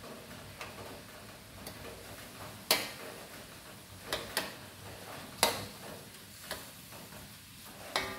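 Metal spatula knocking and scraping against a metal wok while shrimp and squid are stir-fried: six sharp clanks at irregular intervals, the loudest about a third of the way in and just past the middle, over a faint sizzle.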